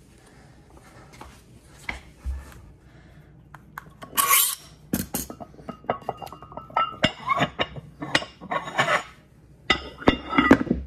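Iron weight plates being slid off a barbell sleeve and handled: metal scraping and clinking starting about four seconds in, with brief ringing from the plates.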